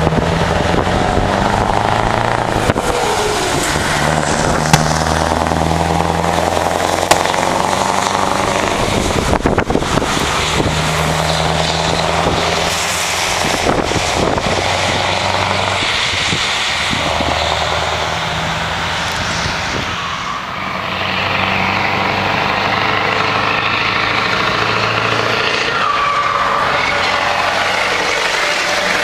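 Scania trucks pulling away and passing. The engine note climbs, drops and climbs again at each gear change as they accelerate, with tyre noise from passing traffic.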